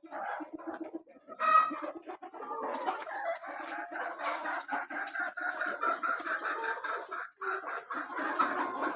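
A flock of Kadaknath chickens clucking and calling over one another, with one loud call about a second and a half in.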